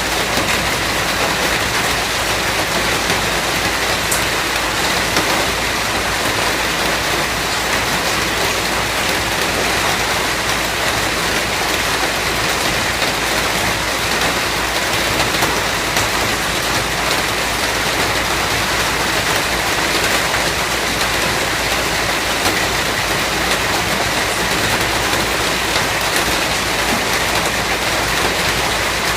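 Steady, continuous rainfall: an even hiss of rain falling on surfaces, with scattered drops.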